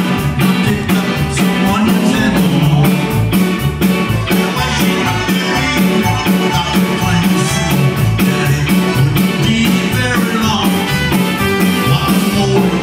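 A live Tex-Mex band plays an instrumental passage: drums keep a quick steady beat under electric guitar, keyboard, button accordion and trumpet.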